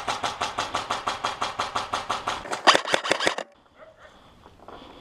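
Airsoft electric gun firing a long full-auto burst, a rapid even string of shots over a motor-and-gearbox whine, lasting about three and a half seconds and cutting off suddenly.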